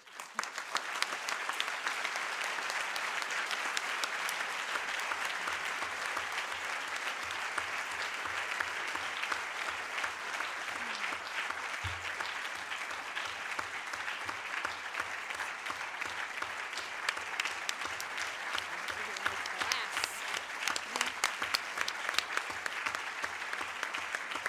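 Audience applauding: dense, steady clapping that starts at once and keeps going without a break.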